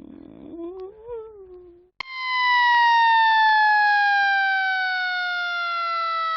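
A siren starts abruptly about two seconds in: one loud steady tone that slowly and evenly falls in pitch. Before it, a short low sound slides up and down in pitch.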